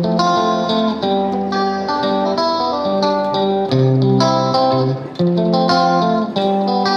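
Background instrumental music: a melody of plucked string notes over changing chords.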